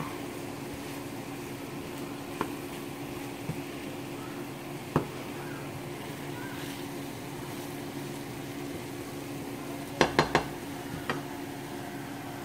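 Kitchen tongs knocking against a frying pan while chicken wings are tossed: a few scattered clicks, then three quick knocks about ten seconds in, over a steady low hum.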